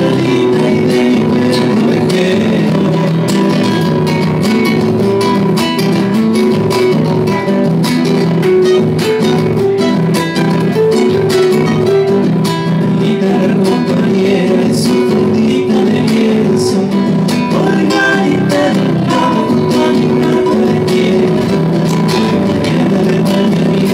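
Two nylon-string acoustic guitars playing together, one strummed and one plucked, in a largely instrumental passage of a Latin American folk song.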